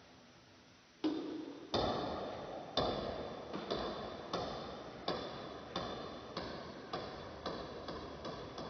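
Table tennis rally: a celluloid ping-pong ball clicking off the paddles and the table, each hit with a short echo. The first hit comes about a second in, and the hits come faster toward the end.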